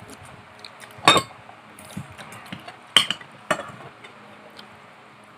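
Cutlery clinking against plates and dishes during a meal: a few sharp, separate clinks, the loudest about a second in and around three seconds in.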